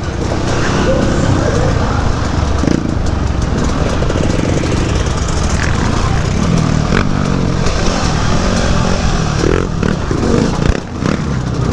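KTM 250 EXC two-stroke enduro motorcycle running hard, its pitch rising and falling with the throttle, with a brief dip in level near the end.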